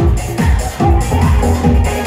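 Electronic dance music from a DJ's mix: a steady kick drum about two beats a second with hi-hats ticking between the beats.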